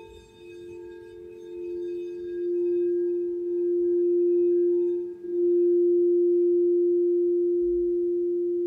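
Frosted quartz crystal singing bowl sounding one steady low tone that swells louder over the first few seconds, dips briefly about five seconds in, then holds. A second, higher bowl tone dies away at the very start.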